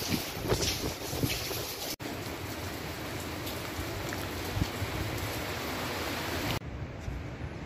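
Steady hiss of heavy storm rain, with gusts of wind buffeting the microphone in the first two seconds. The sound cuts off abruptly about two seconds in and again near the end, each time coming back at a different level, the second time quieter and duller.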